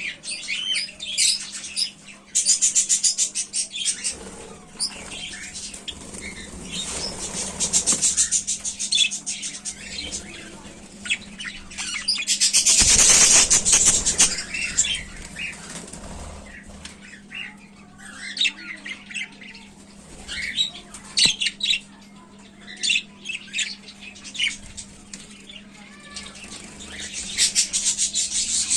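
A young bird chick cheeping in short high chirps, with several bouts of wing flapping; the loudest flutter of wings comes about halfway through. A faint steady low hum runs underneath.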